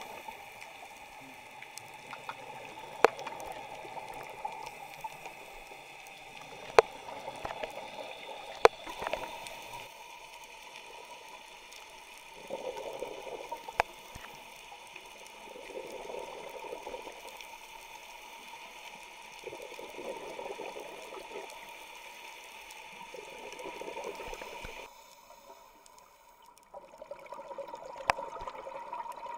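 Underwater sound of a scuba diver breathing through a regulator: a burst of exhaled bubbles about every three to four seconds over steady underwater noise, with a few sharp clicks. The sound drops away briefly near the end.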